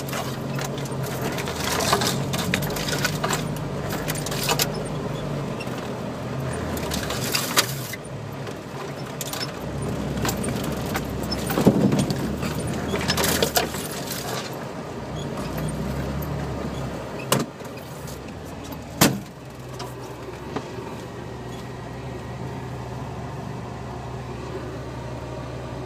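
An off-road vehicle's engine running slowly on a rutted snowy track, heard inside the cab, with loose rattling and repeated knocks as it jolts over the ruts. Two sharp knocks come a little past the middle, and the running is steadier near the end.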